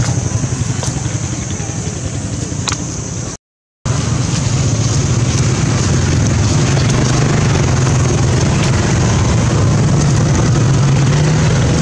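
A steady low motor drone with a hiss of noise over it, cutting out completely for about half a second some three and a half seconds in, then going on with a slightly stronger hum.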